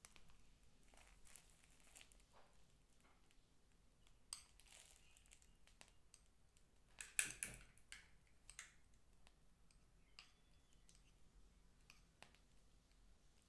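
Faint crinkling and small clicks of a plastic piping bag being squeezed to pipe whipped cream, with a louder cluster of crinkles about seven seconds in; otherwise near silence.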